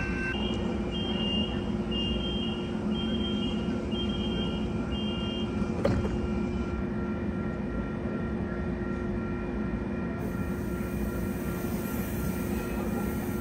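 Commuter train standing at the platform with its engine running steadily. A high electronic beep repeats about every half second for the first five seconds, and a single short knock comes about six seconds in.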